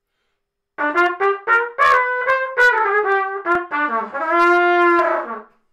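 Trumpet playing a short melodic phrase: a quick run of about a dozen short notes moving up and down in pitch, then one long held note near the end.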